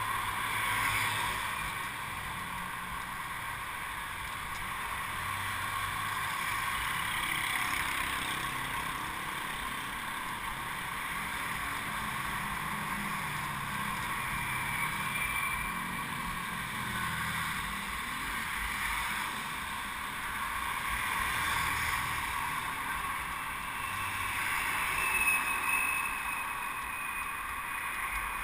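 Steady rush of wind and road noise from a camera mounted on a moving bicycle, with motor traffic passing on the road alongside.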